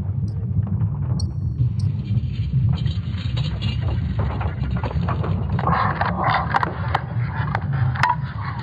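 ESA's sonification of Earth's magnetic field: a deep, steady rumble with scattered crackles and creaks over it, growing busier about six seconds in.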